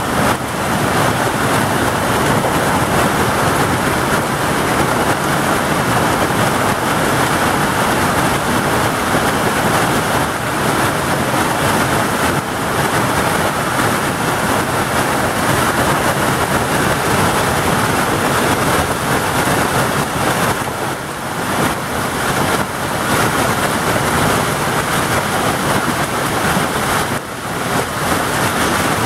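Heavy hail pelting down in a hailstorm: a loud, steady dense rattle of hailstones striking the ground and the things around, easing slightly for moments near the end.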